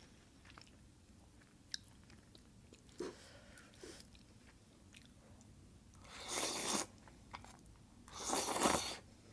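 Creamy spicy instant noodles slurped twice with chopsticks, close to the microphone: two long slurps about six and eight seconds in. Soft chewing and small clicks come between them.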